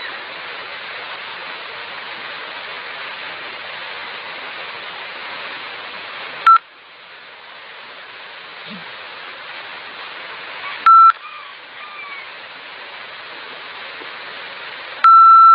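A steady hiss, then three loud electronic beeps on one pitch: two short ones about four seconds apart, and a longer one of about a second near the end.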